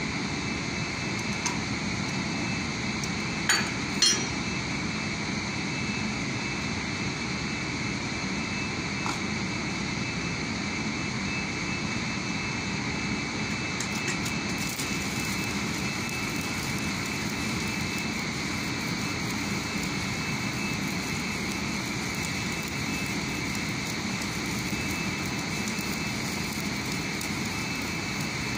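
A steady mechanical drone runs throughout, with two sharp knocks about three and a half seconds in. From about a third of the way in, an electric welding arc adds a fine hiss and crackle as a weld is laid on a steel crane rail.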